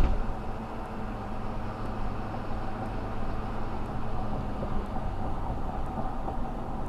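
Vehicle engine running steadily with road noise while driving, with a brief knock at the very start.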